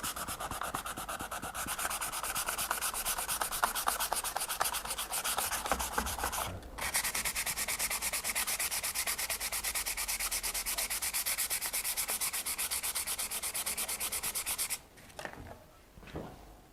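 320-grit sandpaper rubbed in quick, even back-and-forth strokes over a marble tray, taking dried Araldite epoxy resin off the stone. The strokes pause briefly about six and a half seconds in, stop near the end, and are followed by a couple of soft knocks.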